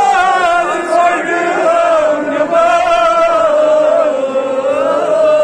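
A man chanting a Kashmiri noha, a Shia mourning lament for Muharram, in long held notes that waver slowly in pitch.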